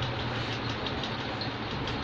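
Steady low rumble and hiss of background noise, with a few faint light ticks.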